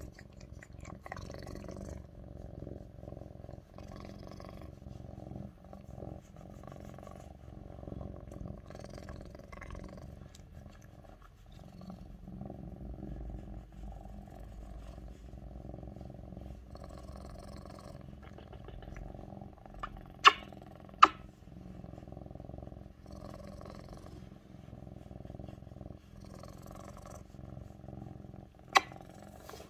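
Lynx point Siamese cat purring loudly and steadily, close up. Three sharp clicks cut through: two about two-thirds of the way through, a second apart, and one near the end.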